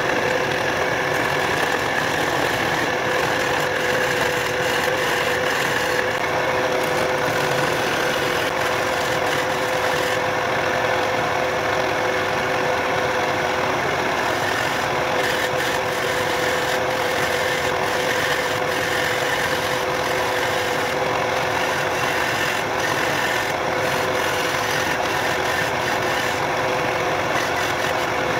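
Wood lathe running at a steady speed with a constant hum, while a turning chisel cuts into the spinning wooden blank with a rough, steady scraping.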